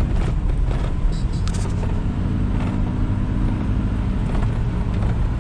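Ford Super Duty pickup driving on a gravel road, heard from inside the cab: a steady low engine and tyre hum, with a few clicks and knocks in the first two seconds.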